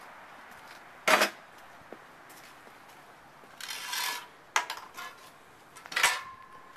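Sharp clinks and knocks of hard objects: one loud clink about a second in, a short scraping rustle near the middle, then two more clinks, the last ringing briefly.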